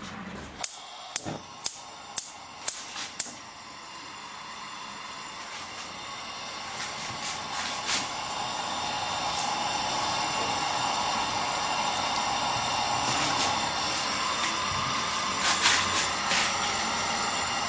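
A knife chopping a parasol mushroom on a cutting board: about seven quick knocks in the first three seconds, with a few more later. From about four seconds in, a sizzling hiss of hot oil in a frying pan rises and then holds steady.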